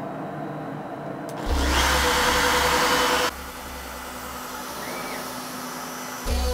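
Workshop power-tool motor noise: a loud rushing machine sound starts about a second and a half in, and after about two seconds it drops to a quieter steady hum.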